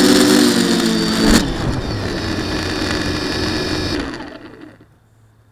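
FPV quadcopter's brushless motors and propellers whirring, with a sharp knock about a second and a half in as it settles into the grass. The whir then runs rougher and dies away as the motors spin down and stop near the end.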